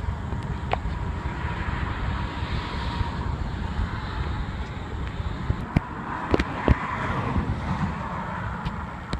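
Wind buffeting the phone's microphone, with a faint steady tone in the first few seconds and a few sharp handling knocks in the second half.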